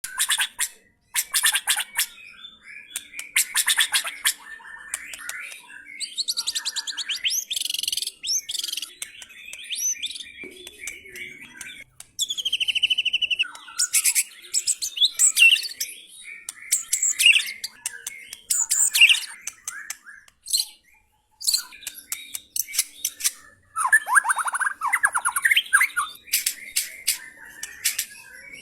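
White-rumped shama singing a long, varied song of rapid harsh chatters, rattles and trills mixed with whistled gliding notes, broken by a few short pauses.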